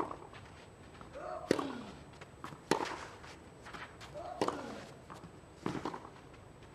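Tennis rally: racket strikes on the ball every second or two, five in all. Twice a player gives a short grunt that falls in pitch as he hits.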